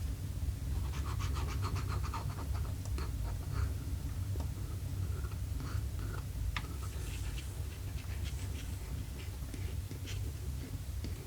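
Light scratching and a quick run of small clicks from hand tools working on lure parts, with scattered single clicks later, over a steady low hum.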